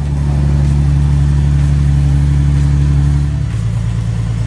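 Nissan 370Z Nismo's 3.7-litre V6 running just after being started following an oil change. It runs steadily, then drops to a lower pitch a little after three seconds in.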